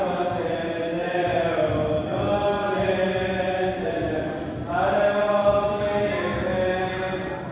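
A choir of women's voices chanting a Syriac Orthodox liturgical hymn together, in long held phrases, with a fresh, louder phrase starting about five seconds in.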